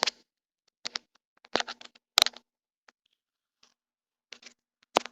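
A few short clicks and taps at irregular intervals, the loudest about two seconds in.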